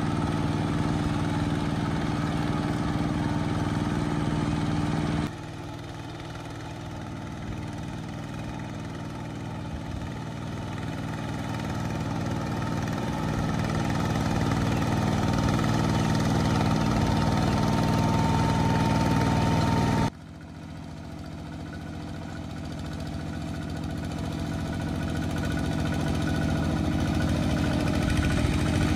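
A two-wheel walking tractor's diesel engine running steadily as it works through rice-field mud. The sound cuts abruptly twice, a few seconds in and again about two-thirds through, and each time the engine comes back quieter and grows steadily louder as it draws nearer.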